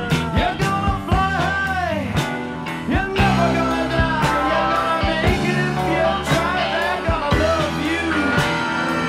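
Rock music with a steady drum beat and melody lines that bend up and down.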